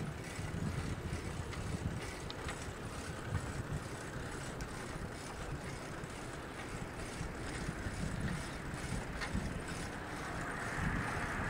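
Wind rumbling and buffeting on the microphone over a steady hiss, the hiss growing louder near the end.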